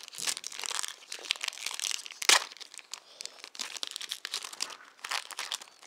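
Foil Pokémon booster pack wrapper being torn open by hand, crinkling and crackling, with one loud sharp crackle about two seconds in.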